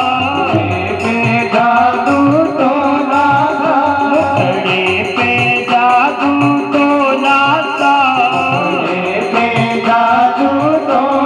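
Devotional bhajan music: a gliding melody with singing over a steady hand-drum beat.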